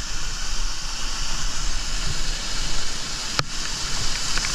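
Waterfall's steady rush of falling water, with a single sharp click about three and a half seconds in.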